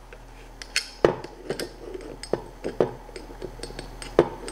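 A camera being fitted to a metal panorama clamp plate: a string of small clicks and knocks as the camera and plate are handled and pressed together, the loudest about a second in and near the end.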